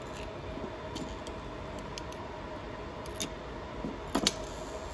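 A few small metallic clicks as a screwdriver voltage tester's steel shaft is set against and pulled into the bore of an energised solenoid valve coil. The loudest click comes about four seconds in. A faint steady hum runs underneath.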